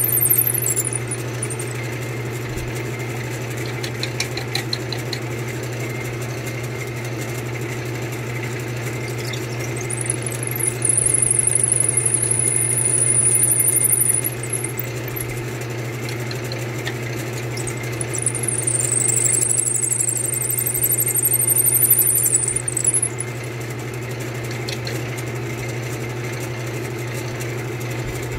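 Wood lathe motor running steadily with a long drill bit spinning in its headstock chuck, boring lengthwise into a hand-fed wooden chair spindle. The bit squeals high-pitched in the wood twice, for a few seconds each time.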